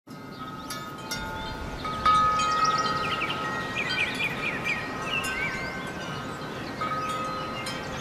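Wind chimes ringing in a breeze, with long clear tones and the loudest strike about two seconds in, another near the end. Birds chirp in short quick notes in the middle.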